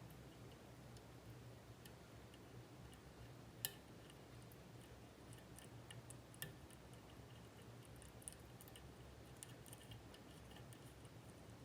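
Faint, scattered clicking and ticking of a lock pick working the pins of a Mul-T-Lock Junior lock, with a sharper click about three and a half seconds in and another at about six and a half seconds.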